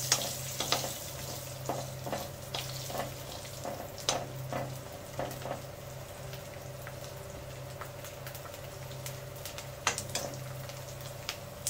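Ginger and garlic sizzling in hot mustard oil in a kadhai, stirred with a metal slotted spatula that scrapes and taps against the pan at irregular moments. The sizzle is strongest at the start and settles lower. A steady low hum runs beneath.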